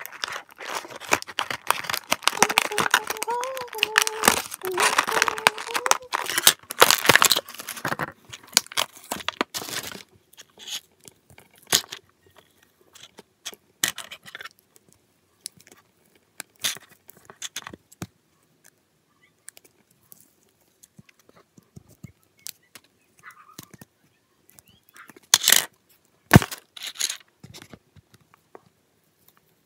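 A toy box's packaging being torn open and crinkled by hand to free a My Little Pony figure. There is a dense stretch of ripping and rustling for the first several seconds, then scattered rustles and clicks. Near the end come two sharp, loud rips.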